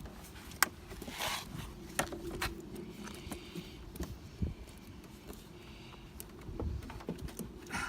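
Irregular clicks, taps and short scrapes of hands working a rubber turbo hose onto the turbocharger in an engine bay, with one sharp click about half a second in.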